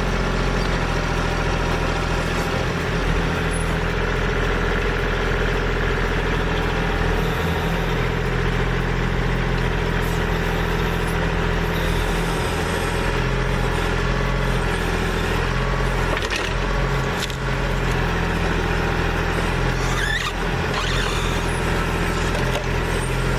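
Diesel engine of a Kubota L2501 compact tractor with backhoe running steadily while it digs out a stump, with a few brief knocks about two-thirds of the way in.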